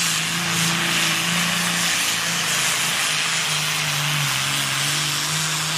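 Diesel pulling tractor running flat out as it drags a weight-transfer sled down the track: a loud, steady engine note over a heavy hiss, its pitch dipping slightly about halfway.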